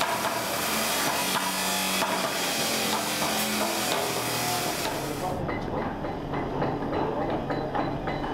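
Hammers tapping stone paving setts into place, with a run of quick knocks in the second half over a steady background noise.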